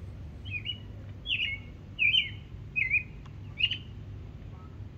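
A bird calling: a series of five short chirps, less than a second apart.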